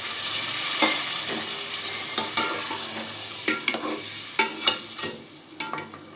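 Water poured into a hot pot of fried potatoes and spice masala, setting off a loud sizzle that dies away over several seconds. Scattered clinks and knocks against the pot sound through it.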